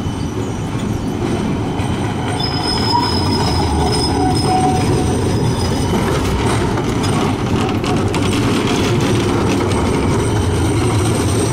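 Amsterdam GVB tram running on street track with a steady rumble. Its wheels squeal in a thin high tone from about two and a half to five seconds in.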